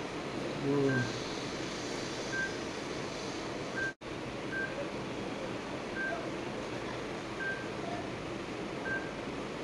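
A short, high electronic beep repeating about every second and a half over a steady hiss. The sound cuts out for an instant about four seconds in.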